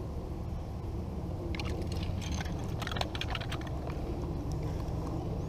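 A quick run of plastic clicks and rattles from about one and a half to three and a half seconds in, as the Rocket Fishing Rod's toy reel is cranked to bring a small bait fish up onto the bank, over a steady low rumble.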